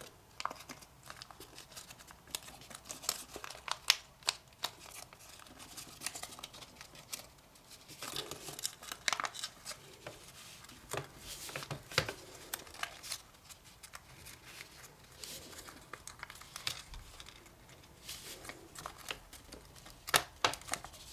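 Kami origami paper crinkling and crackling as fingers round, bend and pinch a folded paper face into shape, in irregular small crackles.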